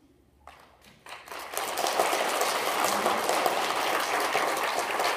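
An audience applauding: a couple of lone claps about half a second in, then full, steady applause from about a second and a half.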